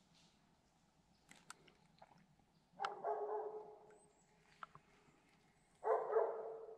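A dog barking twice. Each bark is drawn out for about a second, and the second comes about three seconds after the first.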